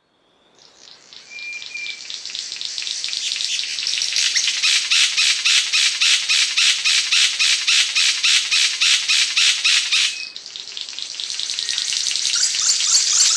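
Cendrawasih panji songbird giving a loud, buzzy rattling song. It swells up, then pulses about four times a second, breaks off sharply about ten seconds in, and starts again, building once more.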